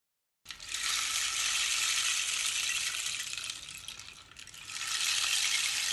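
Rain stick (pau-de-chuva) sounding: a dense trickling hiss of small grains falling through the tube, starting abruptly about half a second in, easing off a little past four seconds, then swelling again as it is turned over.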